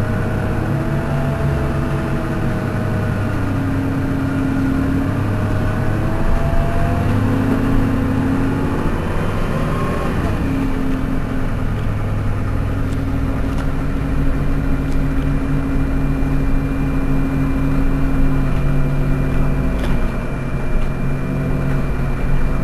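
Heuliez GX 127 city bus engine idling while the bus stands at a stop.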